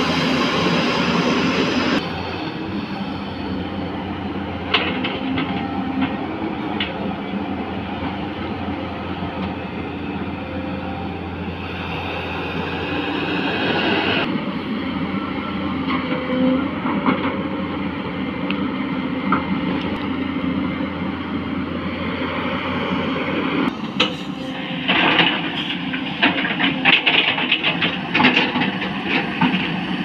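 Tata Hitachi 210 excavator's diesel engine running steadily as it digs in mud. Sharp knocks and clatter join in near the end.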